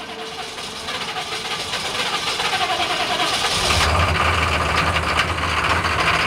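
Diesel engine being cold-started: it turns over for a few seconds, catches about four seconds in and settles into a steady idle.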